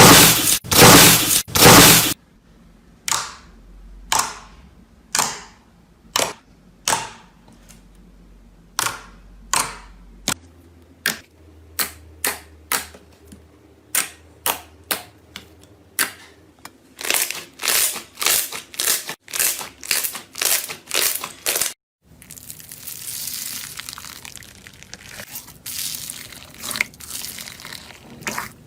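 Slime being squeezed and poked, giving a loud crunchy burst at first, then a series of sharp pops and crackles about once a second that come faster past the middle. Near the end it turns into a softer, steady crackling hiss.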